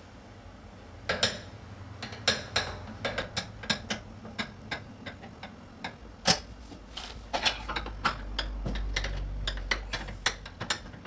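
Irregular metallic clicks and knocks of a hand tool working against the steel base frame of a front-load washing machine, loosening a damper fastening that is very tight. A low rumble joins in about eight seconds in.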